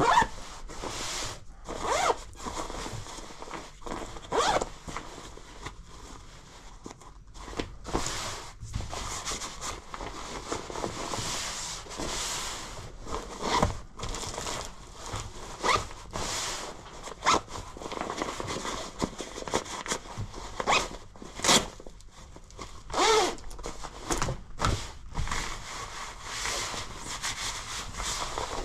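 Gloved hands handling a tactical winter jacket's nylon membrane shell and quilted insulated lining: the fabric rustles and crinkles in irregular bursts, with zippers worked now and then.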